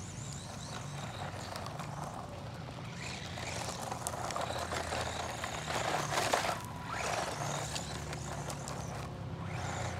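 Haiboxing 18859E 1/18 scale RC monster truck with its 390 brushed electric motor running as it is driven over grass and gravel, its tyres kicking up grit. The sound swells louder and rougher in the middle, with many small clicks of grit, then eases off.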